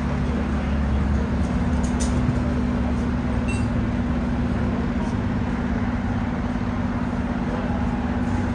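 Fire truck's diesel engine running steadily at idle, a constant low hum. A few faint clicks sound about two and three and a half seconds in.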